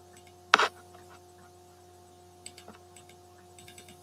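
Steady low electrical hum with a faint constant tone, broken by one loud sharp click about half a second in and a few faint ticks later on.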